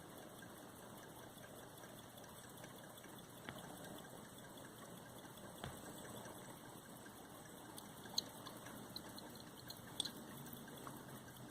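Low steady background hiss with a few faint, isolated clicks: the loudest comes about eight seconds in, and another about ten seconds in.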